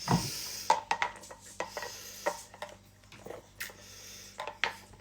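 A short breathy exhale at the start, then scattered small clicks and knocks.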